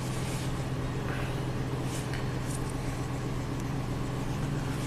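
Chevy Silverado 2500HD's 6.0-litre V8 idling steadily, heard from inside the cab, with a few faint clicks.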